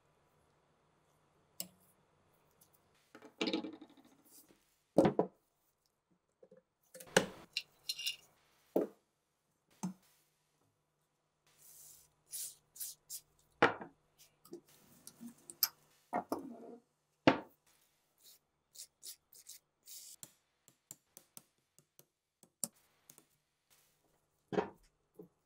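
Gloved hands handling the rusted steel parts of an RPG-7 launcher: scattered clinks, knocks and short scrapes of metal on metal and on the workbench. A faint steady low hum comes and goes.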